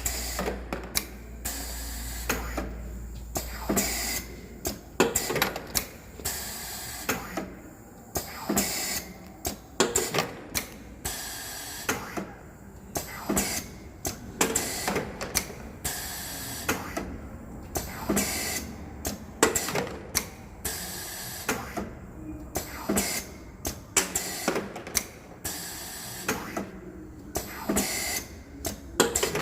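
Automotive parts sorting machine running, with repeated sharp mechanical clicks and knocks, several a second at uneven spacing, over a low hum as parts are sorted into rejects and good parts.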